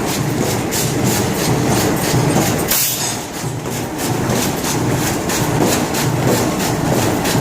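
Industrial machine running with a steady rhythmic clatter, about four strokes a second, dipping briefly just before the middle.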